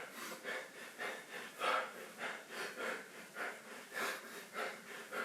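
A man breathing hard in quick, rhythmic puffs, two or three a second, winded from the exertion of leg raises.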